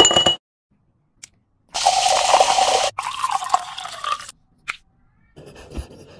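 Ice cubes clattering into a glass tumbler with a brief ring, then champagne poured from a bottle into the glass, the pitch of the pour rising as the glass fills.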